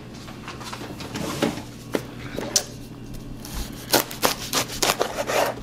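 A wide-bladed cleaver cutting through an onion and knocking on a plastic cutting board: a handful of scattered sharp knocks, most of them in the second half.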